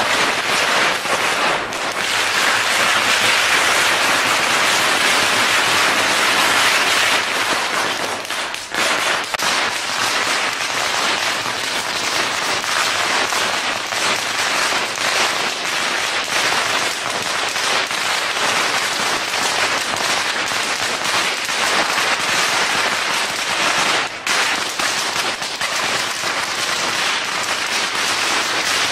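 A long string of firecrackers going off in a continuous dense crackle of rapid bangs, with only brief lulls.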